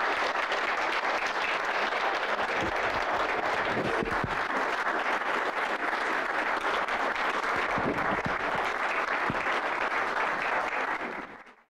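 Audience applauding, many people clapping at a steady level, fading out quickly near the end.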